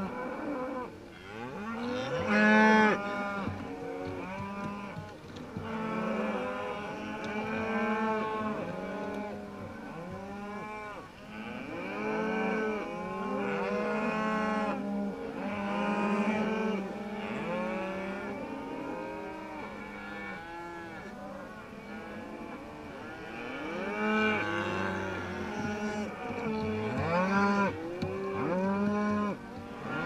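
A herd of beef cattle mooing and bawling without pause, many calls overlapping, with one loud close bawl about two and a half seconds in.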